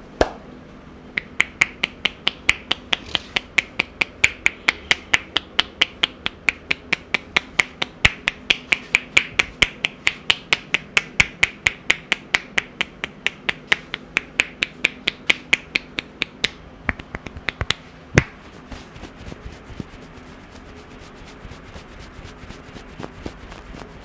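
Head-massage hair cracking: tufts of hair snapped between the barber's fingers give sharp cracks in a fast, even run of about four a second. The run breaks off after about sixteen seconds into a few scattered cracks, one loud one, then only faint ones.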